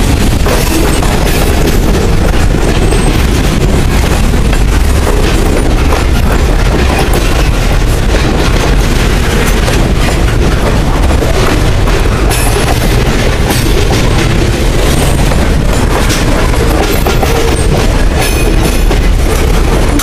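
Freight cars of a manifest train rolling past close by: a loud, steady rumble of steel wheels on rail with irregular clicks and clacks from the wheels.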